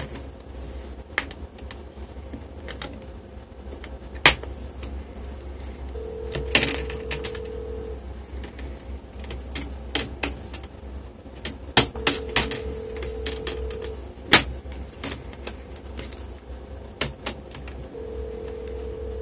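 Sharp plastic clicks and snaps, irregular and scattered, as the clip-on plastic screen bezel of an HP 250 G6 laptop is pried loose by hand. Behind them a low steady tone sounds for about two seconds, three times, about six seconds apart.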